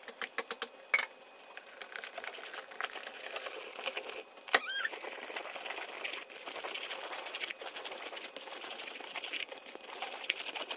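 Thick beetroot purée poured into a plastic mesh sieve and pushed through with a wooden spoon: soft, wet scraping with scattered light clicks and one short squeak a little before halfway.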